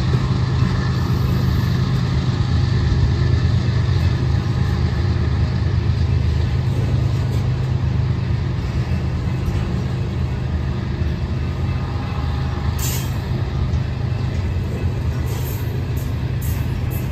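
Loaded coal hopper cars rolling past on the rails: a steady low rumble of steel wheels on track, with a few brief sharp high-pitched sounds toward the end.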